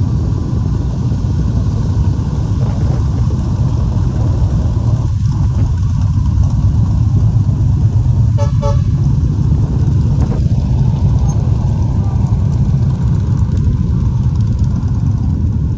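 A convoy of motorcycles and cars passing on a road: a steady, loud rumble of engines and traffic, with a short vehicle horn toot about eight and a half seconds in.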